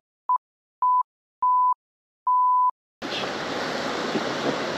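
Four censor bleeps at one steady pitch, each longer than the last, over otherwise muted audio. About three seconds in, the steady outdoor wind and water noise comes back.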